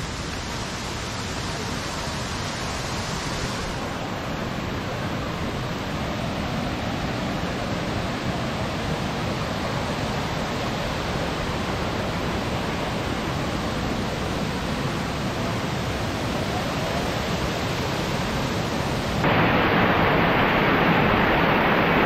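Rushing water of a waterfall cascading over rock, a steady roar. About three-quarters of the way through it turns suddenly louder and closer.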